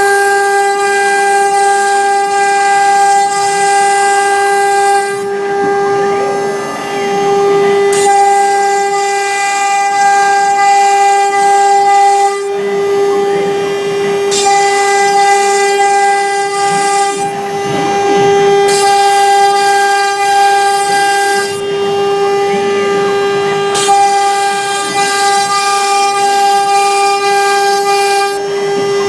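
CNC router spindle running with a steady whine, overlaid by stretches of hissing cutting noise that start and stop every few seconds as the bit cuts into MDF and lifts out.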